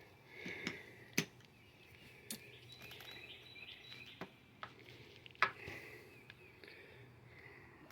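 Quiet hand work on a dirt-bike carburetor: a handful of sharp, separate small clicks and taps of metal parts being handled and fitted, spaced a second or so apart.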